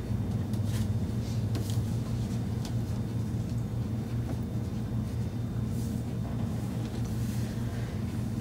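Steady low room hum, with a few faint soft ticks.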